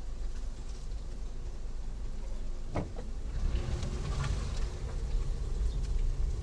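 Vehicle driving, a steady low rumble of engine and road noise, with a few light knocks about three and four seconds in.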